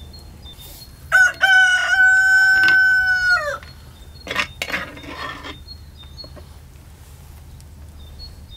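A rooster crowing once, about a second in: a loud cock-a-doodle-doo that opens with short rising notes, holds one long steady note and drops off at the end. A few softer, short noises follow shortly after.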